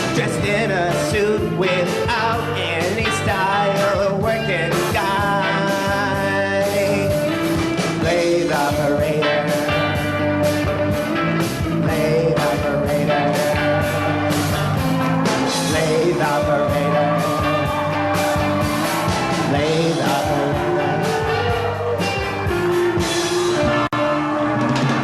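Rock song playing: a full band passage with steady drum hits and lead lines that slide and bend in pitch, with no lyrics heard.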